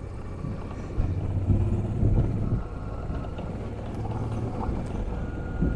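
Motorcycle riding: a 2005 Honda Transalp 650's V-twin engine running low and steady, a little louder from about a second in.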